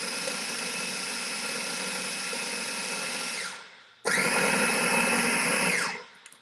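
Small electric food processor motor running steadily, chopping a breadcrumb, cheddar and butter mixture. It winds down with a falling whine and stops about three and a half seconds in, is started again straight away, then winds down and stops near the end.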